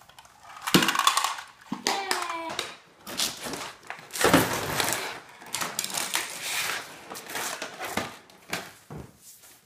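Clear plastic packaging crinkling and rustling as a toy set's plastic tray is unwrapped, with irregular clicks and rattles of plastic pieces. A few short child's vocal sounds come in during the first couple of seconds.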